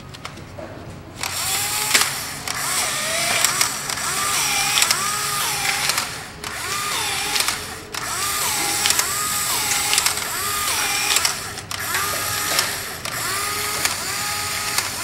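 Modified Polaroid Sun 660 instant camera with a high-speed prototype motor, cycling again and again. The motor and gears whir in a repeating rising-and-falling whine with clicks as it drives frames out of the camera. The shutter is propped so it cannot close, so the camera keeps cycling. The cycling starts about a second in and pauses briefly a few times.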